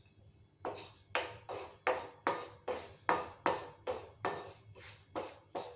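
A wooden spoon stirring black urad dal, curry leaves and salt as they dry-roast in a kadai, giving a rhythmic scraping rattle of grains against the pan. It goes about two to three strokes a second and starts about half a second in.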